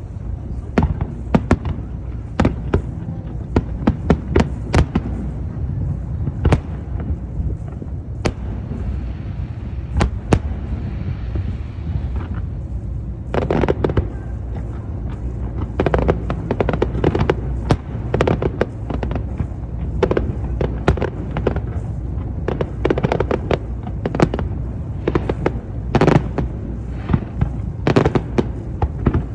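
Aerial fireworks display: a dense, irregular string of sharp bangs and crackles, coming several a second in the busier stretches from about halfway through, over a steady low rumble.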